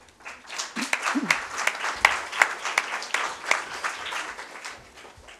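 Applause: many hands clapping in a dense patter that swells up within the first second and dies away near the end.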